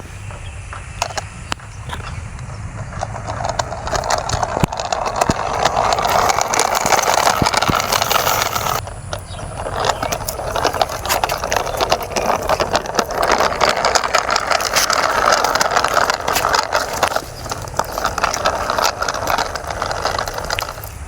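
Small RC toy car running, a steady plastic rattle dense with small clicks. It grows louder about four seconds in and briefly drops out near nine seconds.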